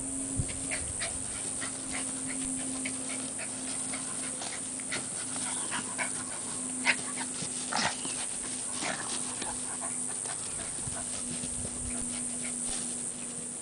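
A rat terrier and a pit bull playing rough: dog panting with many short, sharp play sounds, busiest about six to nine seconds in.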